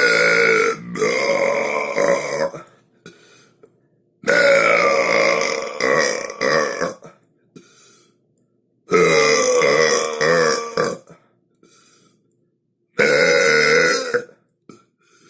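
A run of long, loud human burps: four of them, each lasting between one and a half and three seconds, with short silent gaps between.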